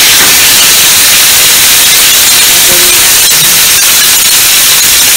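Salmon steak sizzling as it fries in its own rendered oil in a frying pan: a loud, steady hiss with a few faint pops.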